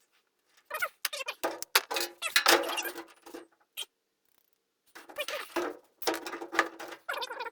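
Irregular bursts of light clinking, scraping and rubbing from hands working sheet metal, with a single click between the two bursts.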